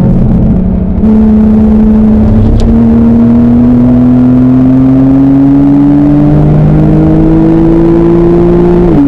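Porsche 991 Carrera 2S flat-six engine under hard acceleration, heard from inside the cabin. After a brief easing in the first second, the revs climb slowly and steadily, then drop sharply near the end at an upshift.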